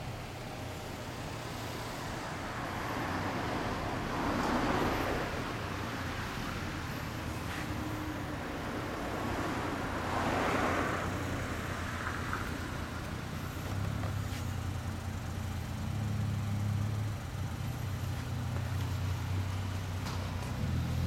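2007 Honda CB1300 Super Touring's inline-four engine idling steadily through a Moriwaki aftermarket muffler, its low note growing stronger in the second half. Traffic passes twice with louder rushes of noise, about four and ten seconds in.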